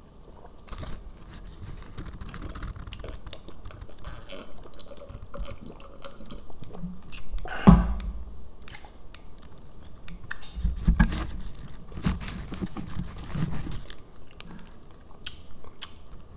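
Close-up eating sounds: chewing and biting into a fast-food burger, with crinkling paper wrappers and small clicks. The loudest moment is a single sharp sound about halfway through.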